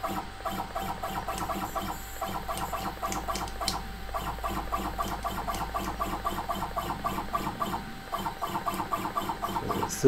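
Stepper motor of a CNC router's Z axis driving its ball screw during short jog moves. It sounds as a rapid, even pulsing whir, about five pulses a second, over a steady low hum.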